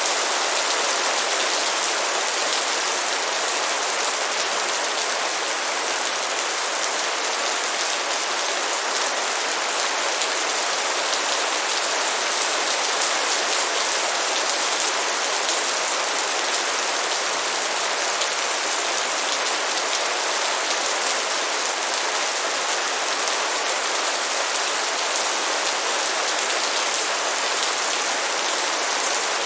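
Steady light rain falling: an even hiss of many drops that does not let up.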